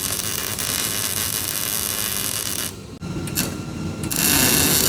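Power tool running steadily on metal with a loud hiss, cutting out briefly a little under three seconds in. It then starts again unevenly, and near the end a louder, deeper machine noise sets in.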